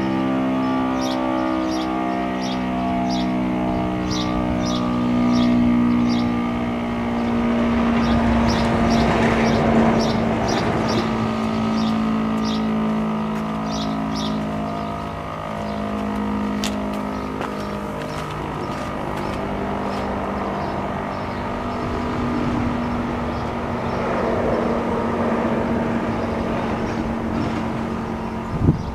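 Federal Signal STL-10 outdoor warning siren winding down after its blast, its low tones slowly sinking as the rotor coasts. A rush of noise swells and fades about nine seconds in.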